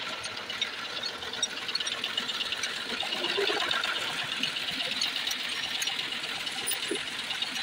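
Steady, fast mechanical rattling with spanners clinking on the metal of a stripped Hino diesel engine.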